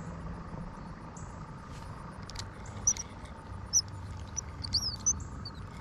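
Outdoor pond-side ambience: a low steady rumble with a few short, high bird chirps in the middle. Light clicks and handling sounds come about three and four seconds in, as a spinning rod and reel is picked up.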